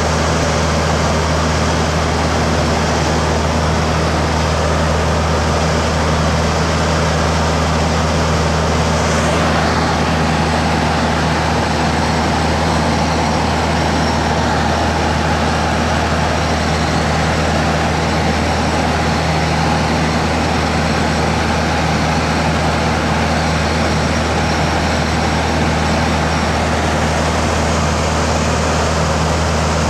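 Cabin sound of a Socata Rallye 880B in flight: its Continental O-200 four-cylinder engine and propeller droning steadily, a constant low hum over a steady hiss of airflow.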